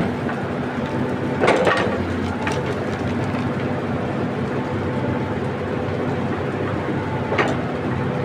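Heavy earthmoving machine's engine running steadily, with two sharp metallic knocks, one about a second and a half in and one near the end.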